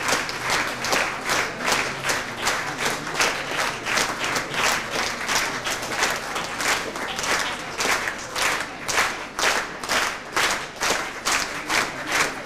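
Theatre audience applauding in unison: many people clapping together in a steady rhythm of about two to three claps a second.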